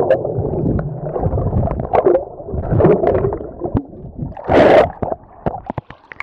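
Muffled swirling water and bubbles heard through a camera held under a pool's surface, with scattered knocks and a louder rush of bubbles about four and a half seconds in.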